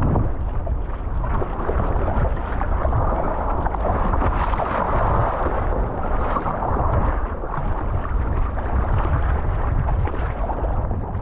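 Steady wind noise on the microphone over the splashing and sloshing of choppy sea water against a kayak.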